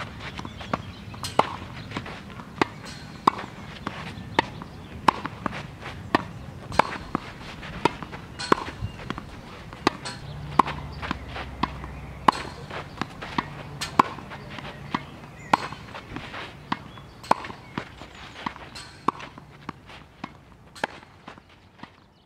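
Tennis balls struck back and forth in a rally on a clay court. Sharp racket-on-ball hits come in a steady rhythm, the loudest about every second and a half to two seconds, with softer hits and ball bounces between them. The sound fades out near the end.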